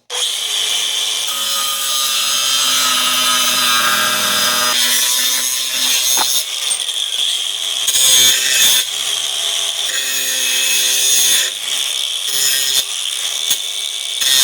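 A power tool cutting through a piece of steel. It runs loud and steady with a few brief dips as the cut goes.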